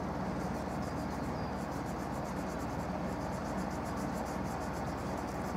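Insects chirping outdoors in quick trains of fine, high ticks, several runs in a row, over a steady low background noise.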